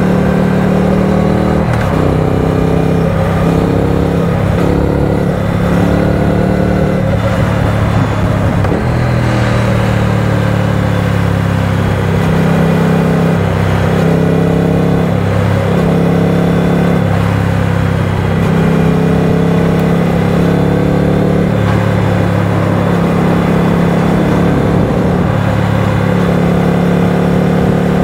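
Triumph Speed Twin 900's 900 cc parallel-twin engine running at highway cruising speed, its note rising and dipping a little with the throttle, under steady wind and road noise.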